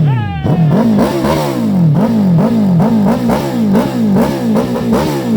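Suzuki Hayabusa's inline-four engine revved in quick throttle blips, the pitch jumping up and falling back about twice a second.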